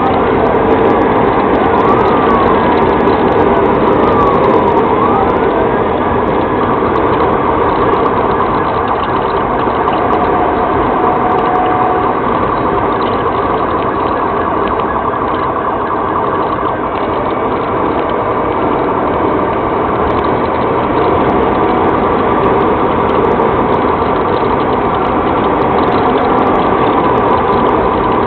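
Police siren wailing in rising and falling sweeps over the steady noise of a patrol vehicle's engine, tyres and wind at about 90 mph, heard from inside the car. The sweeps are clear for the first several seconds, then fade into the driving noise.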